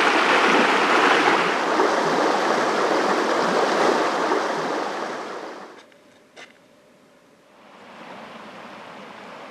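Small stream rushing over stones, a steady water sound that fades away a little past the middle. After a quiet gap broken by one brief click, a softer flow of the stream comes back near the end.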